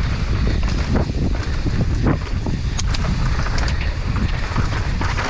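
Mountain bike descending a dusty, rocky trail at speed: wind buffeting the microphone over the tyres rolling on dirt, with frequent knocks and rattles as the bike hits bumps and rocks.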